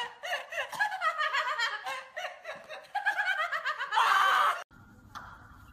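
A man laughing hard in rapid, high-pitched bursts, ending in a loud harsh shriek about four seconds in. The sound then cuts off suddenly, leaving only a faint low hum.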